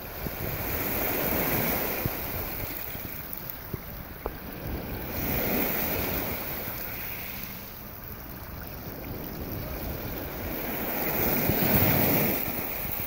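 Small surf breaking and washing up a gravel beach, swelling and ebbing three times as the waves come in. Wind buffets the microphone throughout.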